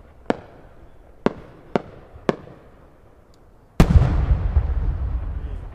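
Fireworks: four sharp cracks of shells in the first two and a half seconds, then near the four-second mark a large multi-ring peony shell (a Japanese 8-gō yae-shin) bursts with a heavy boom that rumbles and echoes on as it fades.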